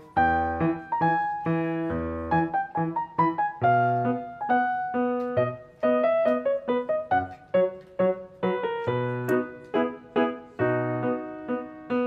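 Background piano music: a light melody of quick notes over low bass notes.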